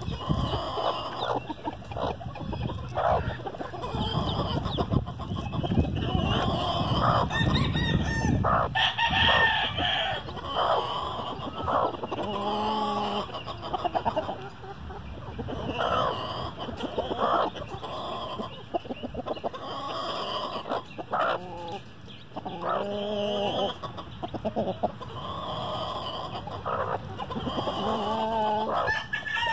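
A broody hen clucking to her newly hatched chicks while the chicks peep continually in high, thin calls. A rooster crows three times, about 12, 22 and 28 seconds in.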